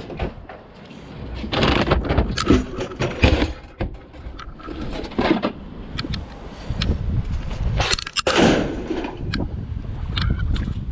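Scrap items being thrown onto a scrap yard pile: a series of crashes and clattering impacts, coming in several irregular bunches.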